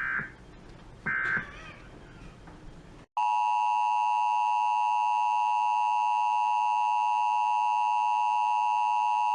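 Emergency Alert System data bursts: the last two of the three short, warbling end-of-message code bursts, about a second apart. About three seconds in, the loud, steady EAS two-tone attention signal starts.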